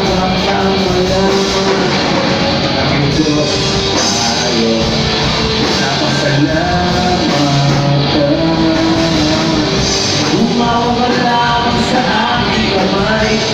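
Live rock band playing loudly: a male singer sings over electric guitar and bass guitar.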